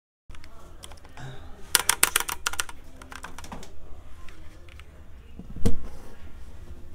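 Typing on a Keychron K3 low-profile mechanical keyboard with brown switches and ABS keycaps: irregular key clicks, with a quick run of keystrokes about two seconds in and one louder, deeper clack late on, likely a larger key.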